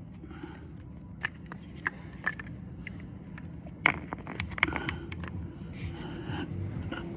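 Scattered small clicks, knocks and scrapes of hand tools and small metal parts being handled, with the sharpest knock about four seconds in and a quick cluster just after, over a steady low hum.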